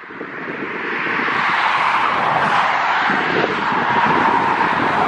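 Jet airliner's engines on final approach: a steady roar that grows louder over the first second or so, then holds as the twinjet nears the runway threshold.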